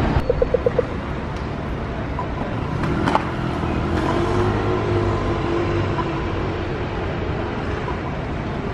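City street traffic: cars and other road vehicles running past, with an engine hum swelling in the middle. A quick run of five short beeps comes about half a second in.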